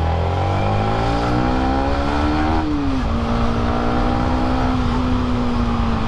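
Yamaha MT-15's single-cylinder engine pulling away under throttle. The revs climb for about two and a half seconds, drop sharply about three seconds in as it shifts up a gear, then hold steady while it cruises.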